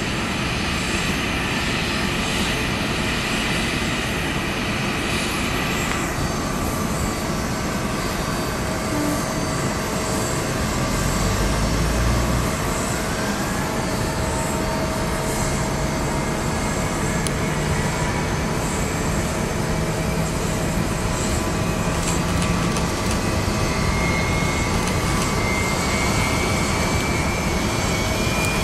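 Steady jet noise from an Airbus A330-200 freighter with Pratt & Whitney PW4000 engines during pushback. A high hiss drops away about six seconds in, and a thin whine climbs slowly in pitch, most clearly in the last few seconds, as an engine spools up during start.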